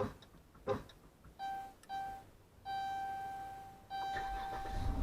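Two clicks, then the minivan's electronic chime: two short beeps followed by a long steady tone. Near the end the 2013 Dodge Grand Caravan's 3.6-litre V6 cranks and starts on the remote start.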